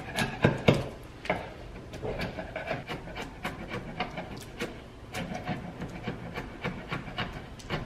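A sharp chisel scraping old paint off hardwood door trim in short strokes, about three a second, the loudest ones about half a second in.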